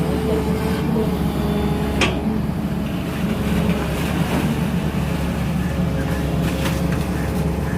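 Sany 220 excavator's diesel engine running steadily, with a sharp knock about two seconds in and another near the end.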